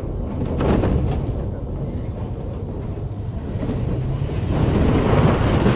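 Heavy machinery running with a low rumble while the metal of a B-52 airframe is torn apart, with short crunches of metal about half a second in and louder, denser crunching near the end.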